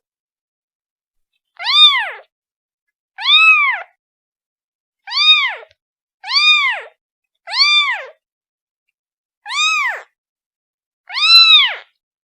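A kitten meowing over and over, calling for its mother: seven high-pitched meows, each rising then falling in pitch, about one every one and a half seconds.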